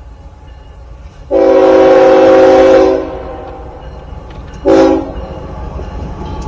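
A Norfolk Southern diesel freight locomotive's air horn sounding a chord of several notes: one long blast of about a second and a half, then a short blast near the end, over the low rumble of the approaching train. The long-then-short blasts fit the standard grade-crossing horn signal.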